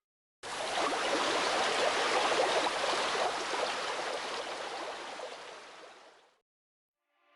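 A steady rushing, hissing noise like running water, with no pitch or rhythm. It starts abruptly about half a second in and fades away shortly before the end.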